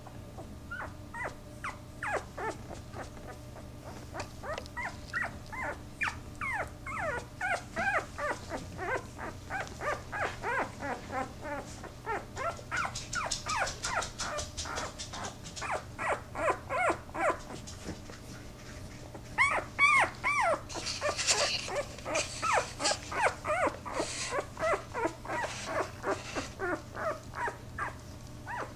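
Newborn Podengo puppy whining and squeaking over and over, short high cries about two or three a second, louder for a moment about two-thirds through. This is the complaining of a puppy that is moving about on its first wobbly legs.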